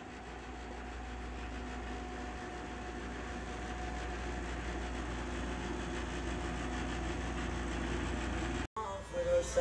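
Steady low hum and hiss of room noise, slowly getting a little louder. Near the end it cuts off abruptly and music begins.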